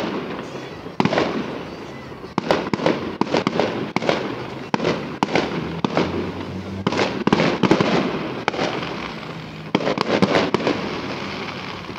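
Fireworks salute bursting overhead: a run of sharp bangs, about one to three a second and some in quick clusters, each followed by an echoing tail.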